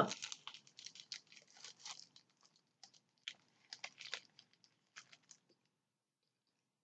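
Chewing and crunching food: a quick run of small crisp crunches that thins out after about two seconds and stops about five and a half seconds in.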